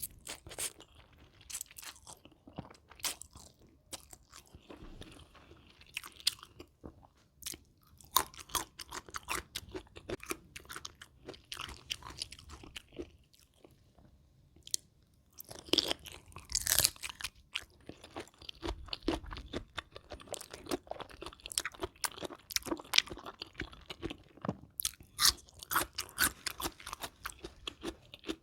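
Close-miked crunching and chewing: a person eating spicy rice-noodle salad with shrimp and fresh raw vegetables, with irregular clusters of crisp crackles from each bite and a few brief pauses.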